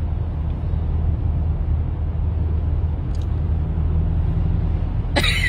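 Steady low rumble of a car's engine and tyres heard from inside the cabin while driving on a motorway, with a short burst of sharp sounds near the end.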